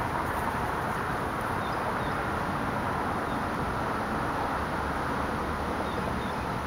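Steady outdoor background hiss with no distinct event, a few faint high chirps over it.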